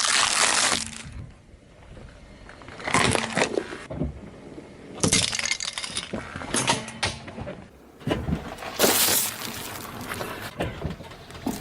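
Brittle objects cracking and crunching as a car tyre rolls over them, in about five separate bursts of crackle and breaking, some with a glassy clink of pieces.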